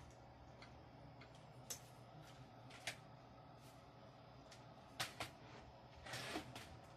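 Low, steady hum of a running open-bench PC with a few faint scattered clicks, two close together about five seconds in, then a short rustle of handling near the end.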